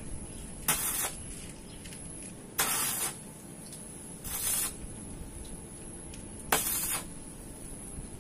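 Electric arc welder tack-welding the exhaust pipe in place: four short bursts of arc noise, each about half a second long, spaced a second or two apart.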